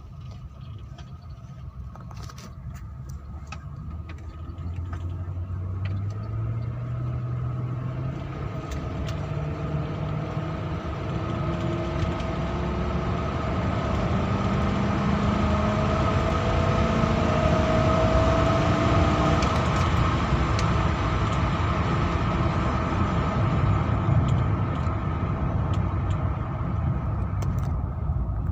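Car engine running, its pitch climbing in several steps and the sound growing steadily louder over the first twenty seconds.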